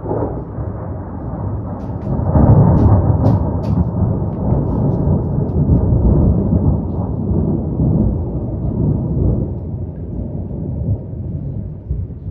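Long rolling rumble of thunder, swelling about two seconds in and slowly dying away near the end.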